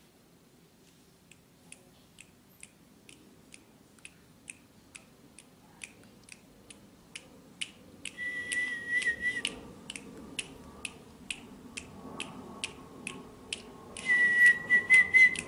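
Evenly spaced sharp ticks, about two and a half a second, slowly growing louder, with a held high whistle-like tone twice, about eight and fourteen seconds in.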